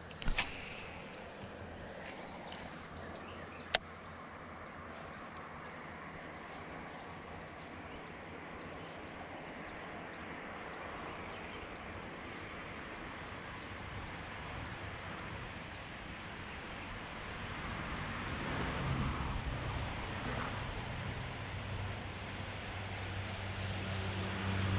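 Insects, crickets among them, calling steadily: a high, even drone with faint chirps repeating about twice a second. One sharp click comes about four seconds in, and a low engine drone grows in the last few seconds.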